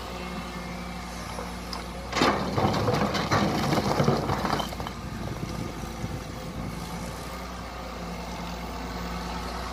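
Kobelco SK200 excavator's diesel engine running steadily. About two seconds in, a loud stretch of scraping and clattering lasts a couple of seconds as the bucket digs and scrapes soil along the canal bank wall, then the engine runs on alone.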